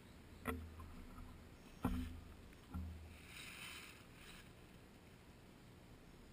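Soft knocks and low thumps of a handheld camera rig being carried, three of them in the first three seconds, then a brief rustle lasting about a second and a half.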